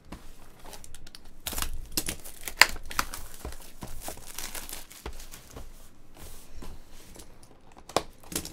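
Clear plastic shrink wrap being torn and crumpled off a cardboard trading-card box by hand: a run of loud crinkling and tearing crackles.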